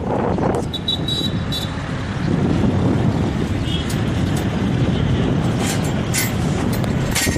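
Airbus A330 jet engines at takeoff thrust during the takeoff roll: a loud, steady rumbling roar that swells slightly about two seconds in.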